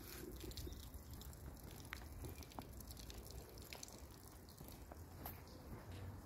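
Faint outdoor background, close to silence: a low rumble with a few light ticks scattered through it.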